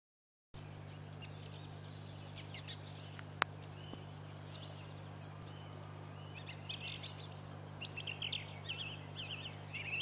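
Song thrush singing a run of short, varied phrases, some repeated, over a faint steady low hum. A single sharp click sounds a few seconds in.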